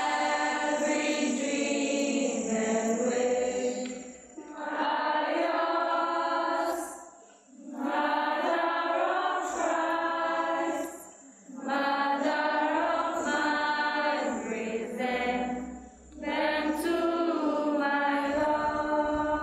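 Many girls' voices chanting together in unison, in phrases of a few seconds broken by short pauses.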